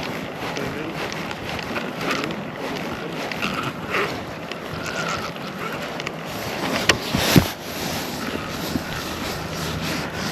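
Steady rush of water with wind buffeting the microphone, broken by two sharp knocks in quick succession about seven seconds in.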